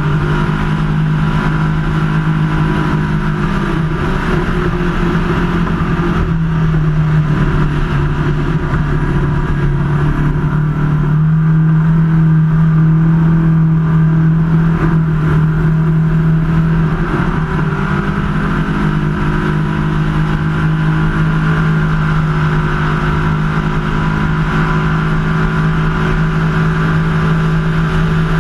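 Ski race boat's engine running flat out at racing speed, a loud steady drone with wind buffeting the open cockpit. Its pitch rises slightly about eleven seconds in and drops back about six seconds later.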